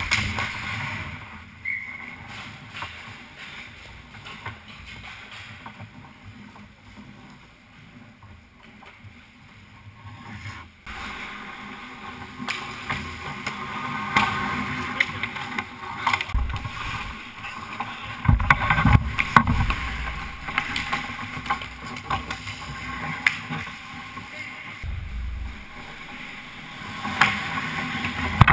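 Ice hockey play heard from inside the goal net: skate blades scraping and swishing on the ice, with frequent sharp clacks of sticks and puck. Heavy low thumps come about two-thirds of the way through and again at the end.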